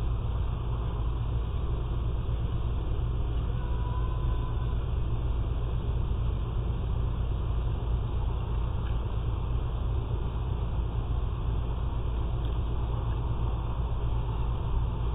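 Steady low rumble with hiss, picked up by an outdoor security camera's microphone, with a faint short chirp about four seconds in.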